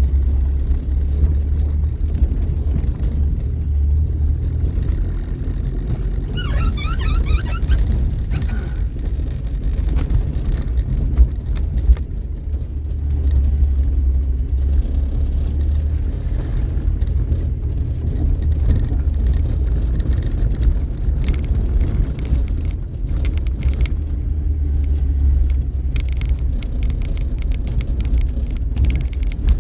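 Car driving slowly along a rough, potholed dirt road: a steady low rumble of engine and tyres with scattered knocks and rattles from the uneven surface. A brief high chirping sound about six seconds in.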